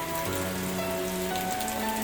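Steady rain falling, with scattered raindrop ticks. It plays over soft sustained music chords that change about a quarter second in and again near the end.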